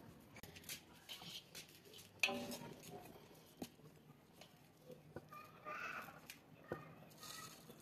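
Faint soft pats and scrapes of bare hands smoothing wet clay mud inside an iron bucket, with scattered small clicks.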